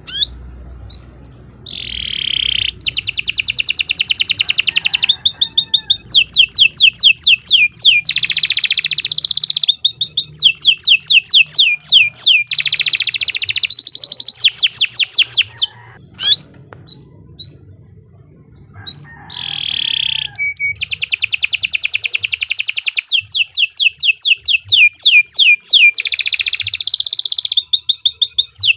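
Domestic canary in full, continuous song: long phrases of fast trills and rapidly repeated sweeping notes. The song breaks off for about three seconds midway, then starts again.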